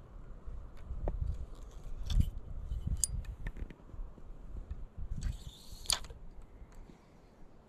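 Close handling noise of fishing tackle: scattered small clicks and rustles as a soft-plastic worm is rigged on a shaky head hook and a spinning reel is picked up, over a low uneven rumble on the microphone. A short hissing rustle comes near the end.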